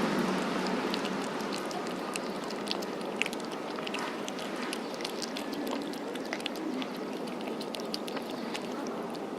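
A cat chewing food close to the microphone: irregular small crunching clicks, several a second, over a steady outdoor background hiss.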